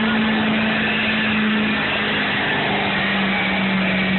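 Duramax V8 turbodiesel of a 2007 GMC pickup running hard under load while pulling a weight-transfer sled. It gives one steady, loud engine note whose pitch sags slightly about halfway through.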